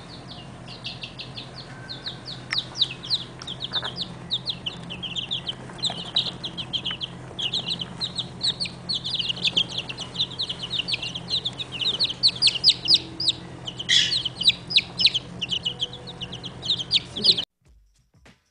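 A brood of baby chicks peeping without pause, many quick high peeps a second, over a steady low hum. The peeping cuts off abruptly near the end.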